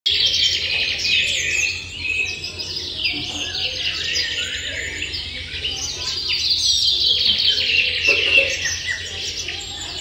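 Nestlings begging for food: a dense, continuous chorus of high, short chirps from several young birds at once, many of them overlapping.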